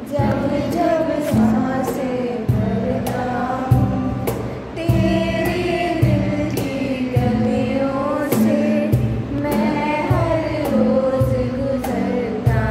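A man singing to his own acoustic guitar, strummed in a steady rhythm.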